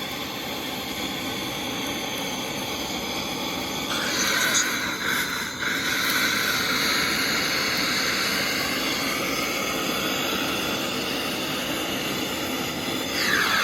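A refrigeration soldering torch burning with a steady hiss, held to firewood that is failing to catch. The flame noise grows louder and brighter about four seconds in.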